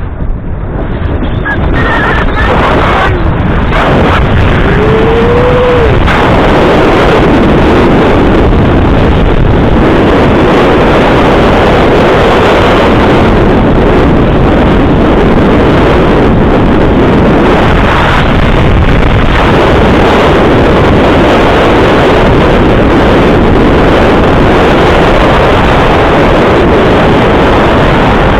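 Loud, steady wind buffeting an action camera's microphone during a fast downhill run on snow, building over the first couple of seconds and then holding. A short pitched sound rises and falls about five seconds in.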